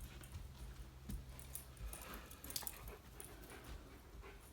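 A dog faintly whimpering and moving about, with scattered faint clicks and scuffs of footsteps on the floor.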